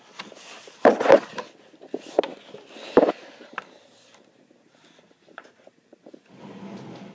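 Handling noise from a phone camera and a picture book: a loud knock with rustling about a second in, another sharp knock around three seconds, then a few soft clicks and a brief soft rush near the end.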